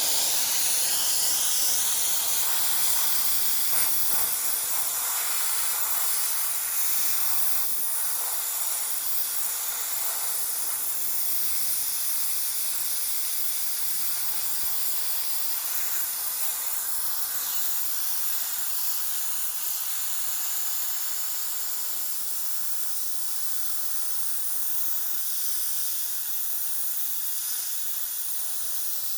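Sandblaster blasting abrasive with compressed air against a steel truck frame: a steady, loud hiss.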